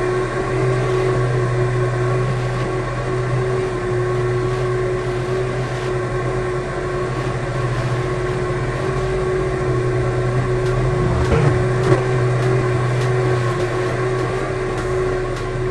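Electric fan motor running with a steady hum, with a brief knock about twelve seconds in.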